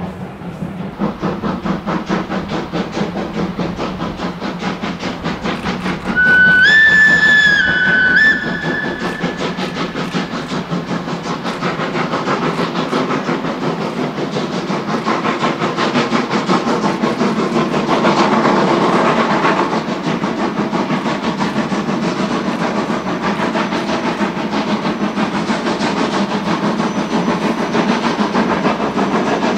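Steam locomotive hauling a train, its exhaust beating in a fast, steady rhythm. About six seconds in, the whistle blows once for about two seconds, its pitch rising slightly at the start, and ends with a short second toot.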